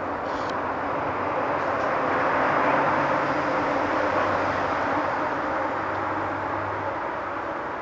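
A passing vehicle some way off: a steady rushing noise with a low hum that swells over the first three seconds and then slowly fades.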